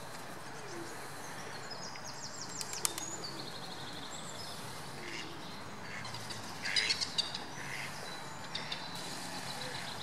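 Small birds chirping and trilling in short, high-pitched runs, loudest about seven seconds in, over a steady background hiss.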